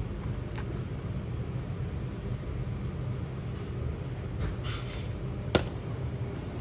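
Steady low hum of a convenience store's background, with a brief crinkle of plastic and one sharp click about five seconds in as a plastic-wrapped instant noodle cup is handled.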